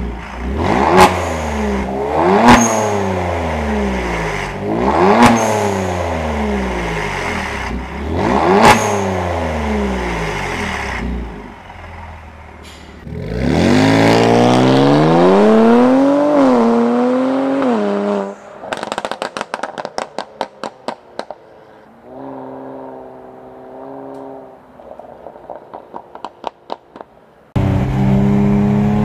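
Kia Stinger 3.3T twin-turbo V6 through a Lozic catback exhaust with valve control, revved in four sharp blips with a crack at the top of each. Then one longer rev that wavers and drops, followed by rapid crackling and popping on the overrun from the pop tune, a brief steady idle, more crackles, and near the end the car driving under way.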